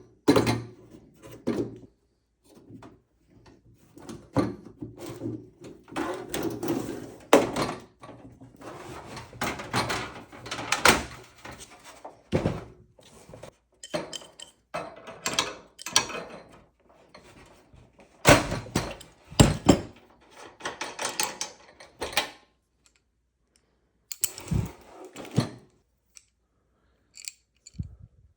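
Metal parts of a propane camping stove being handled and taken apart with hand tools: irregular knocks, clinks and short stretches of scraping, with a couple of brief pauses near the end.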